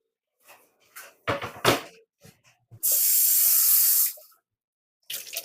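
A few sharp knocks of kitchen things, then a steady hiss lasting just over a second that stops suddenly: water from a kitchen tap run briefly.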